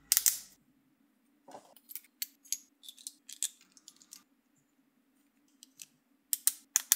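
3D-printed plastic planetary gears being handled and pressed together: a scatter of small plastic clicks and taps, with a short clatter just after the start and a quick run of clicks near the end.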